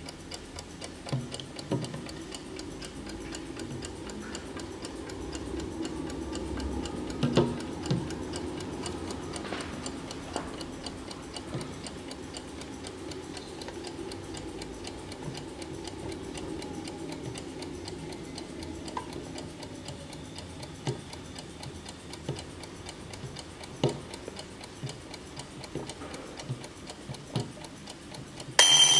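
Bayard Donald Duck mechanical alarm clock ticking steadily, with a few knocks from the clock being handled. Just before the end its alarm suddenly starts ringing loudly.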